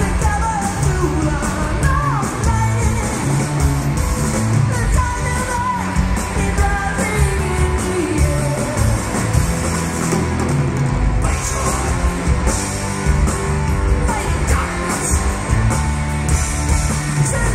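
Live hard rock from a three-piece band: driving electric bass, distorted electric guitar and drums, with a high male lead vocal over the top.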